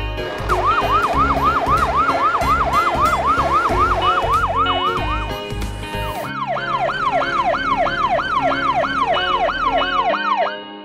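Electronic yelp siren on a cartoon fire truck, its pitch sweeping rapidly up and down several times a second. It sounds in two runs, one from about half a second in to about five seconds and another from about six seconds to near the end, over background music with a beat.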